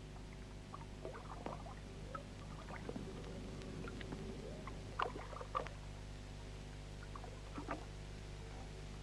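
Faint, irregular bubbling and clicking of water over a steady low hum, with a few louder pops about five and a half seconds in and near the end.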